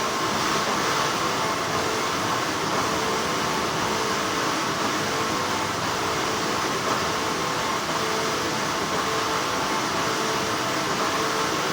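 Continuous hum and hiss of textile factory machinery, with a couple of faint whining tones that flicker on and off through it.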